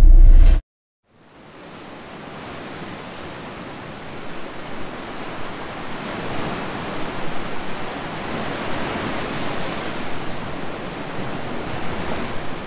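A deep rumble cuts off sharply within the first second. After a brief silence, the steady wash of sea surf fades in and grows louder, swelling and ebbing.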